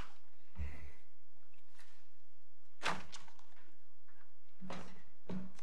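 A few scattered thuds and knocks, the sharpest about three seconds in, over a steady low hum: papers and objects being handled on the courtroom desks.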